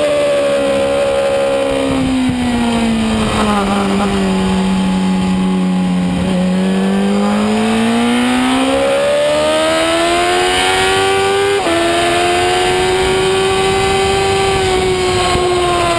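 Superbike engine heard from the bike itself under race conditions: its note falls steadily for the first six seconds as the bike slows through a corner, then climbs again on the throttle out of it, with a sharp break near twelve seconds from a gear change, after which the note holds fairly steady. Wind rush runs under it throughout.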